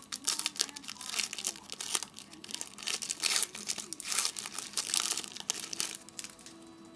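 Foil wrapper of a 2007 Donruss Gridiron Gear football card pack being torn open and crinkled by hand, a dense crackle that stops about six seconds in.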